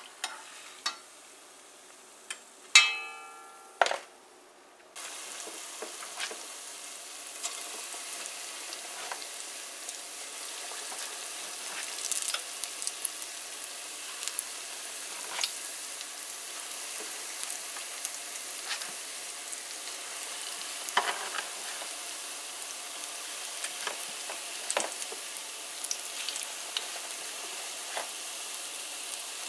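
Vegetable pakoras deep-frying in hot oil: a steady sizzle full of sharp pops and crackles that starts abruptly about five seconds in. Before it, a few metal clinks and one loud ringing clang of a utensil against the pot.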